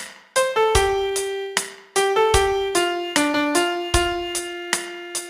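Solo piano playing a melody note by note, each note struck and left to ring, with a few low bass notes under it.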